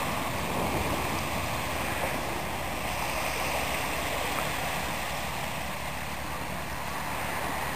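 Steady rush of small waves breaking and washing up a sandy beach, with a low rumble underneath.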